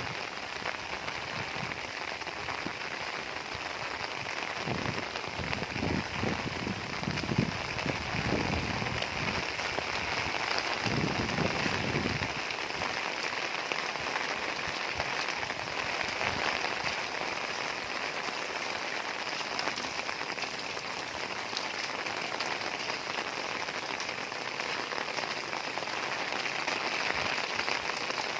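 Heavy rain falling steadily in a dense, even hiss. A low, uneven rumble runs under it for the first dozen seconds or so, then fades out.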